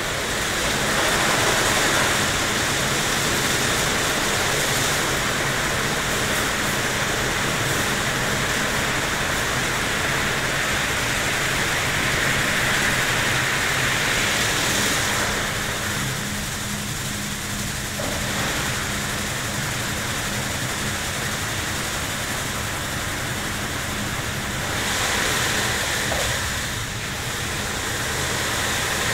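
WashTec SoftCare2 Pro rollover car wash at work: rotating foamed-polyethylene brushes sweeping over a car amid water spray, a steady rushing noise over a steady low hum.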